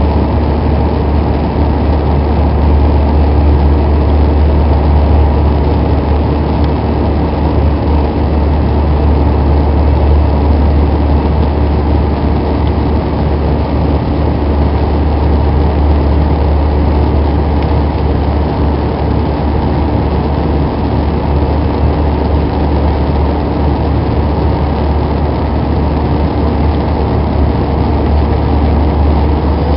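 Steady engine and airflow drone inside the cabin of an Airbus A320 climbing after takeoff, heaviest in a deep low rumble and unchanging throughout.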